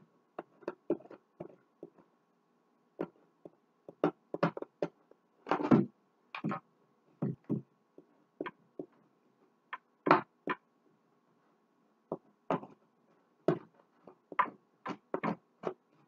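Irregular clicks, taps and knocks of hands handling a clear plastic refrigerator crisper drawer while gluing its cracks, over a faint steady hum.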